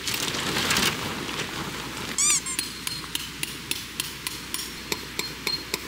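Hammer striking a metal tent stake over and over, about three blows a second, each with a short metallic ring. The stake is being driven into gravel ground frozen solid, which it barely goes into.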